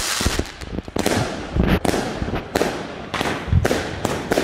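Vuurwerkmania Tournament Box firework cake firing: a string of sharp bangs, roughly one every half second to a second, with crackling between them.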